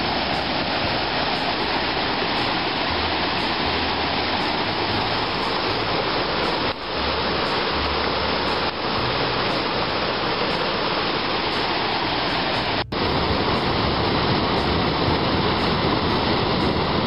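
Steady roar of the Niagara River's rushing water, rapids and falls, with brief breaks where the recording cuts from one clip to the next.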